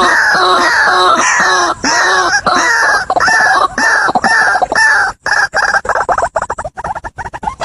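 White-breasted waterhen calling: a loud run of repeated arching croaks, about three a second, that quicken and shorten about five seconds in into a fast rattle of clucks.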